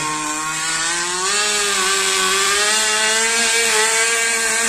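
Zenoah two-stroke petrol engine of a radio-controlled speedboat running at high speed, a steady buzzing whine that rises a little in pitch about a second in.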